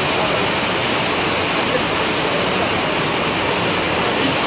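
Torrential rain pouring down: a loud, steady, dense hiss that doesn't let up.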